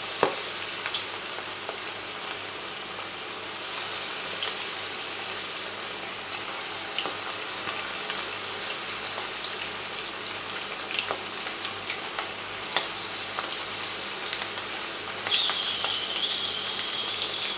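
Batter-coated prawns deep-frying in hot oil in a kadhai: a steady sizzle with scattered pops and crackles. About two seconds before the end a steady high-pitched tone joins in.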